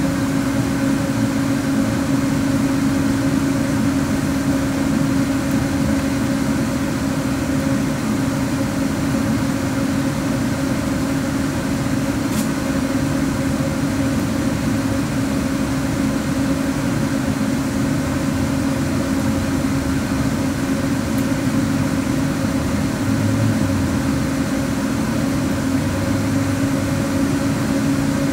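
Tram running noise heard from inside the car: a steady hum with one constant tone over a rumble, with no rise or fall in pitch. A single faint click comes about twelve seconds in.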